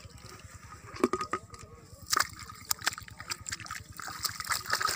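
Hands splashing and sloshing through shallow muddy water while grabbing for a fish: a string of short, irregular splashes, the sharpest about a second in and just after two seconds.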